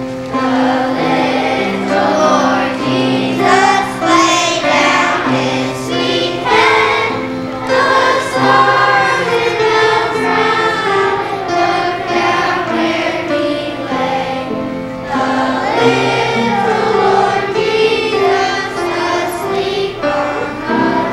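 Children's choir singing a Christmas song to an accompaniment.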